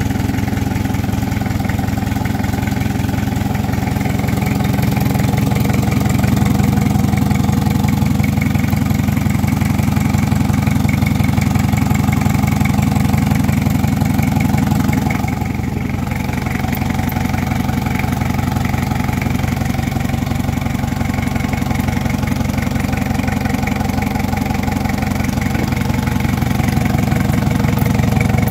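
Isuzu C240 four-cylinder diesel engine running steadily on a test stand with its transmission attached. Its note grows a little louder a few seconds in, then shifts and briefly dips about halfway through.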